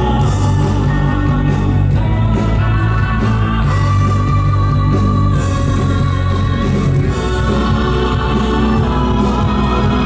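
Loud show music with singing voices over a steady bass.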